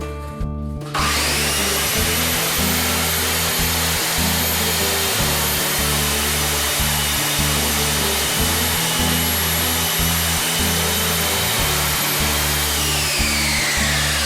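Ozito 210mm 1600W compound mitre saw switched on about a second in, its motor and blade running loud and steady through a cut in 40 mm timber, then spinning down with a falling whine near the end.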